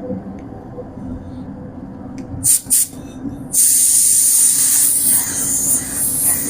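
Spray gun's compressed-air hiss: two short trigger bursts about two and a half seconds in, then a continuous spraying hiss from a little past halfway, over a steady low hum.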